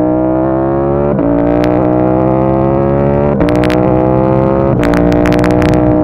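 KTM 890 Duke R's parallel-twin engine pulling hard under full acceleration, revs climbing steadily and dropping sharply at three upshifts about one, three and a half and five seconds in. A few sharp clicks come around the second and third shifts.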